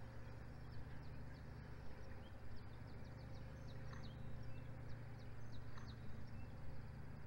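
Wild birds giving many short, high, downward-slurred chirps in loose series over a steady low hum.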